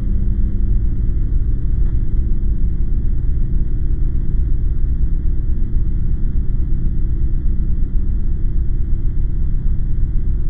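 A steady, low rumbling drone with faint held tones: a dark ambient soundtrack.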